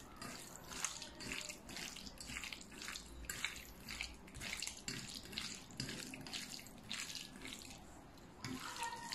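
Raw chicken breast strips being squeezed and mixed by hand in a stainless steel bowl with salt and cooking wine: faint, wet squelching in short repeated strokes, about two or three a second.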